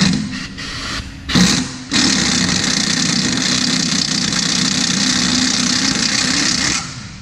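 Pneumatic impact wrench on a rusted frame bolt. It gives a few short bursts, then runs steadily for about five seconds and stops near the end, rounding off the bolt head.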